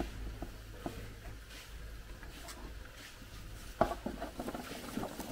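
Light taps and patter as chopped vegetables (green chillies, carrot sticks, shallots) slide off a paper-lined metal tray into a plastic basin, with a sharper knock about four seconds in and a run of small knocks after it.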